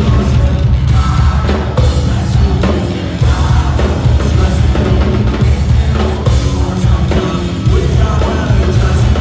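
Live rock band playing loud: electric guitar and drum kit with singing, recorded from the crowd.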